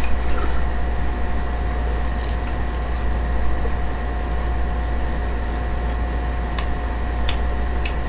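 Steady background hum with a constant thin whine, like a running fan or other small machine. A few faint light clicks near the end, like chopsticks tapping a dish.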